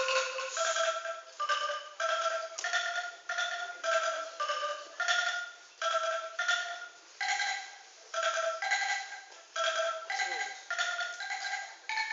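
Angklung, tuned bamboo tubes shaken in their frame, playing a melody of rattling pitched notes at about two notes a second.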